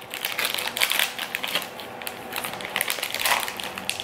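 Clear plastic snack wrapper crinkling and crackling as it is pulled and torn open by hand.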